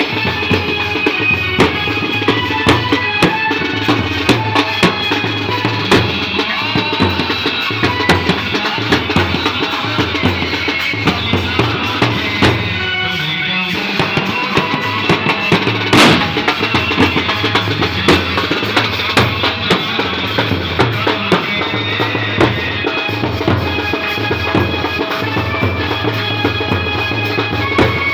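Street wedding band playing live: large marching bass drums and a snare drum beat a steady rhythm, with a melody over them. One especially loud hit comes about halfway through.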